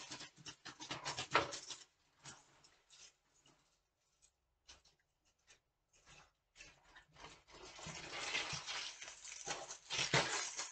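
Plastic packaging crinkling as it is handled, with scattered clicks and knocks of kitchen work; a dense burst of crinkling at the start, then sparse clicks, then a longer stretch of rustling near the end.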